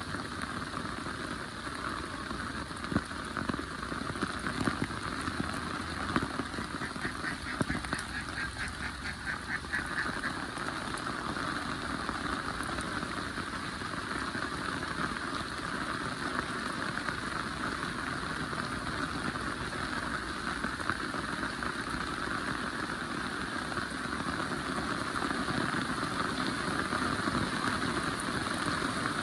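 Heavy rain falling steadily, a dense even hiss with a few sharp ticks of drops or drips in the first seconds. About a quarter of the way in, a brief run of rapid evenly spaced pulsing calls rises over the rain.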